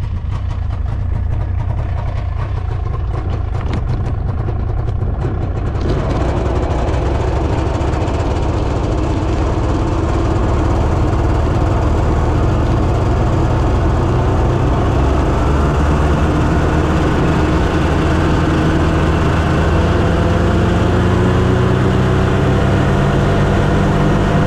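Ski-Doo snowmobile engine running as the sled gets under way. The sound grows fuller about six seconds in, and through the second half a whine climbs slowly in pitch as it gathers speed.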